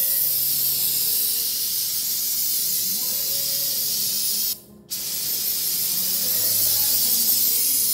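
Aerosol spray can hissing steadily as solvent cleaner is jetted onto an automatic transmission valve body to wash the oil off it; the spray stops for a split second a little past halfway, then resumes.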